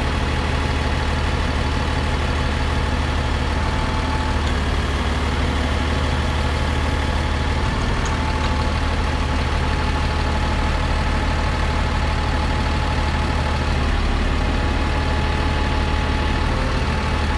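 Mercedes diesel engine of a 2006 Freightliner M2 service truck idling steadily with the PTO engaged, turning the hydraulic pump for the truck's Hiab 045 fold-up crane as the boom is worked.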